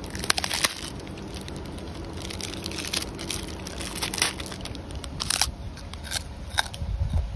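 A macaque biting and crunching a crisp packaged snack cracker, with the plastic wrapper crinkling: sharp, irregular crackles throughout.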